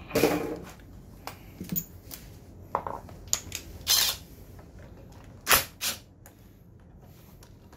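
A few short metal clinks and knocks of tools being handled and a socket being set onto a scooter's front brake caliper bolt, the cordless ratchet not yet running.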